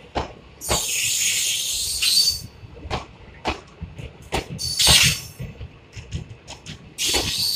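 Indian Railways blue passenger coaches of an express train running past on the track: wheels clattering irregularly over the rail joints, with loud high hissing noise about a second in, again around five seconds in, and near the end.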